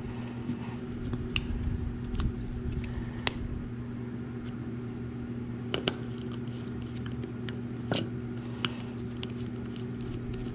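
Small metallic clicks and scrapes, scattered and irregular, as two screwdrivers pry at and loosen the drag assembly of a Johnson 100A spincast reel, over a steady low hum.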